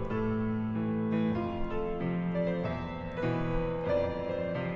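Solo piano playing a slow enka ballad passage without voice, new notes and chords struck every second or so and left to ring.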